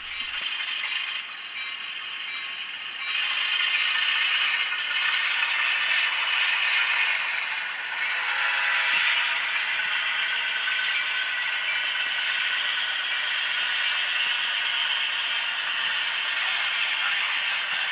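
HO-scale Atlas Alco RS-11 model locomotive running along the track, its TCS WOW sound decoder playing a clattering Alco diesel engine sound through a tiny speaker, mixed with the model's running-gear noise. The sound gets louder about three seconds in.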